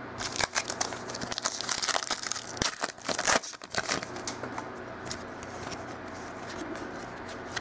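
A 2015 Contenders football trading-card pack being torn open, its wrapper crinkling and the cards rustling as they are pulled out. The tearing and crinkling fill the first four seconds or so, then die down.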